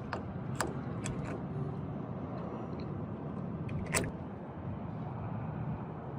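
Steady drone of an aircraft cockpit in the climb after takeoff, with a few short sharp clicks, the loudest about four seconds in.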